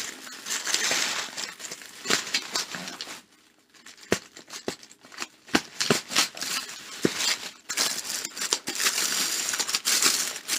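Plastic packaging crinkling and crackling as hands pull apart a poly mailer, plastic bag and bubble wrap, with a short lull about a third of the way in.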